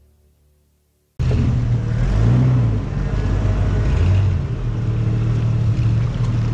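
The tail of background music fades out. About a second in, an off-road 4x4's engine cuts in loud, running under load and revving up twice.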